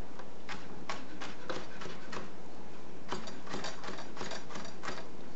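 Chef's knife chopping celery stalks on a plastic cutting board: a string of sharp chops, spaced out at first, then coming quicker from about halfway through.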